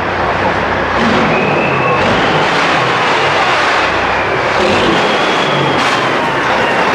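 American cab-over semi truck's diesel engine running loud under power, echoing in a concrete tunnel, with a thin high whistle that rises and falls over the engine noise.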